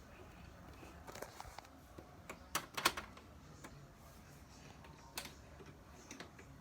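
A run of small, sharp clicks, the loudest a cluster a little under three seconds in, over a faint steady low hum: the controls of a window air conditioner being set before start-up.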